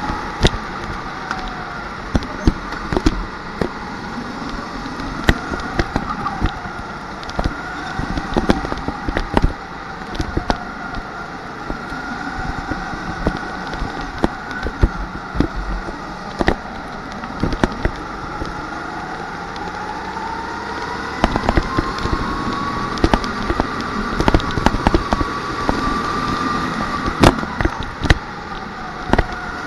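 Onboard sound of a rental kart at racing speed. Its motor pitch rises and falls through the corners, with frequent sharp clicks and knocks from the kart as it runs.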